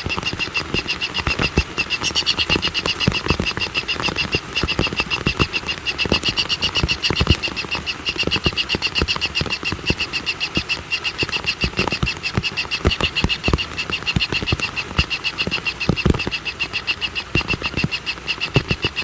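A fast, steadily pulsing animal call chorus, with irregular low knocks and clicks throughout.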